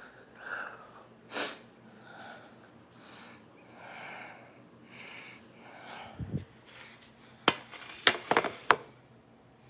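A person breathing softly with nose sounds. A low thump comes about six seconds in, and a few sharp clicks near the end are the loudest sounds.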